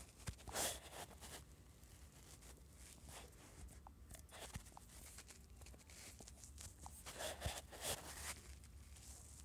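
Faint rustling and small taps close to a phone's microphone, with two short breathy swishes, one about half a second in and one around seven and a half seconds in.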